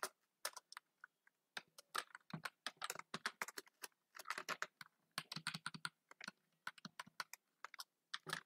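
Typing on a computer keyboard: quick irregular runs of faint key clicks with short pauses between them.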